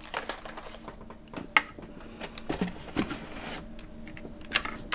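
Hot Wheels die-cast cars in plastic blister packs being handled, with scattered light clicks and rustles of plastic and card and a sharper click about a second and a half in.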